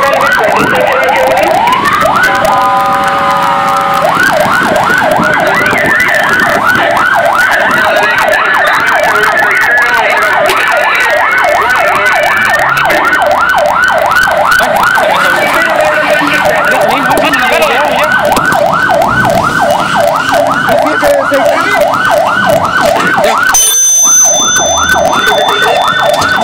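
Fire engine siren on the way to a call. It opens with a few seconds of stepped tones, then settles into a fast rising-and-falling yelp about four times a second, with a brief break near the end.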